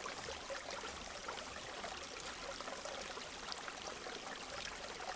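Steady flowing water of a nearby creek, a constant wash with faint scattered ticks over it.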